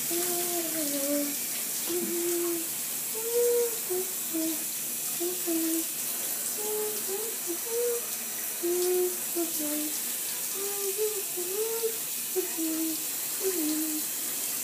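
Water running from the tap into a bathtub while a dog is rinsed, a steady rushing hiss. Over it come many short, high, wavering whines, one after another.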